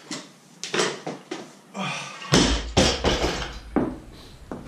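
A weightlifter breathing hard and straining through a failed clean-and-jerk attempt, then the loaded barbell with bumper plates dropped to the floor about two seconds in: a heavy crash followed by a couple of smaller knocks as it settles.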